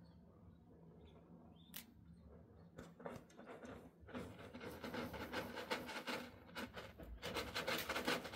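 Cat scratching and raking granular litter in a litter tray with its paws: a few scattered scrapes at first, then rapid, continuous scraping from about four seconds in.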